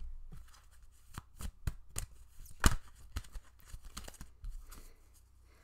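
Oracle cards being shuffled and handled: a run of irregular light snaps and taps, with one louder snap a bit under three seconds in.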